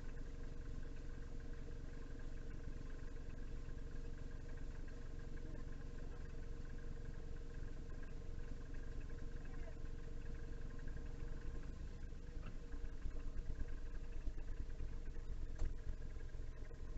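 A car engine running with a low rumble as the sedan backs out of the driveway. It grows louder and more uneven in the last few seconds, over a steady faint hum.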